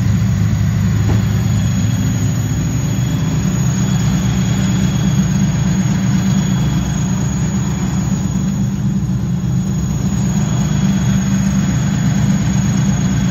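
Datsun 240Z's freshly installed L28 2.8-litre inline-six, on triple side-draft carburettors, idling steadily and loudly on its first run after the install.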